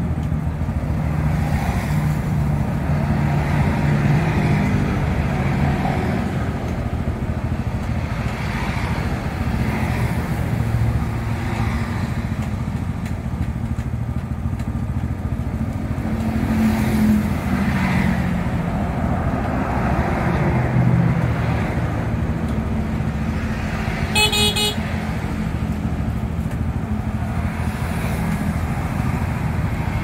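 Road traffic going past: a low engine hum that rises and falls as vehicles pass, with one short horn toot about 24 seconds in.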